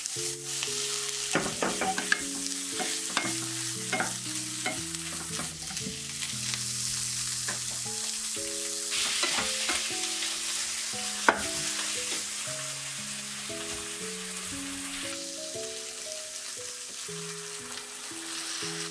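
Sliced onions, then thin-sliced beef, sizzling in a frying pan while a wooden spatula stirs and taps against the pan, with one sharp knock about eleven seconds in.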